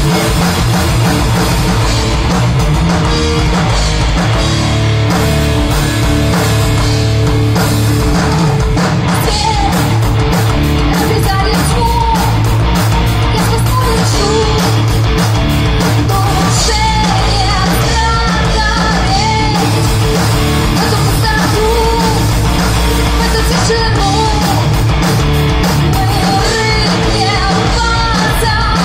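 Rock band playing live through a PA: electric guitars and drum kit, with a woman singing lead from about ten seconds in.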